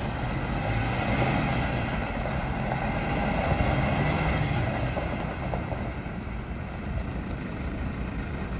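2015 Iveco Stralis 460 tractor unit's six-cylinder diesel engine running as the truck pulls away over gravel, with a steady low hum that grows fainter from about six seconds in as it moves off.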